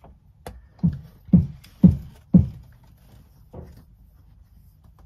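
A run of dull knocks: a faint one, then four loud ones about half a second apart, each with a short boom after it, and a softer one about a second later.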